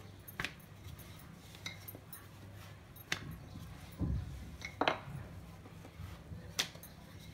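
Wooden rolling pin rolling out a folded chapati on a granite countertop: a faint rolling sound broken by a few light knocks and clicks as the pin and hands touch the stone.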